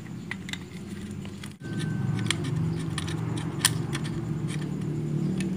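A screwdriver unscrewing the screws on the sheet-metal housing of a sewing machine's foot pedal speed controller: scattered light metallic clicks and scrapes. A low steady hum runs underneath and grows louder after a brief dropout about a second and a half in.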